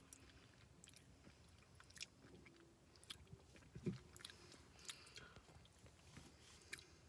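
Quiet chewing of an Oreo cookie: faint crunches and small mouth clicks scattered irregularly throughout.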